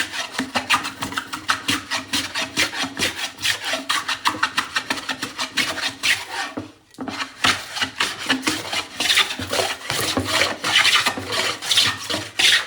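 Hand plane shaving a wooden board in quick repeated scraping strokes, with a short pause about seven seconds in.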